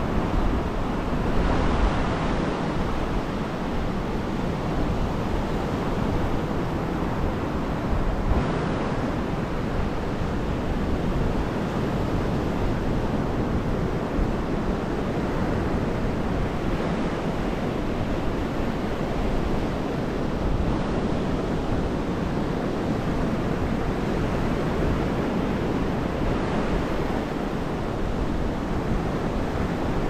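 Mediterranean surf washing onto the beach in a steady, unbroken noise, with wind rumbling on the microphone.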